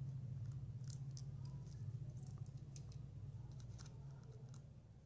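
Faint, irregular clicks and ticks of a small screwdriver turning out screws from the plastic end cap of a Bluetooth speaker, over a steady low hum.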